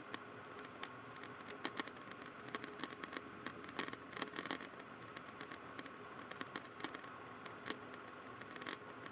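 Faint steady hiss with a low hum, broken by scattered sharp clicks and crackles at irregular intervals, thickest around the middle.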